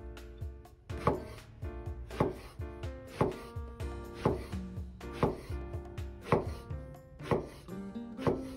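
Kitchen knife slicing through an eggplant onto a wooden cutting board, one cut about every second, each ending in a sharp knock on the board. Soft background music plays underneath.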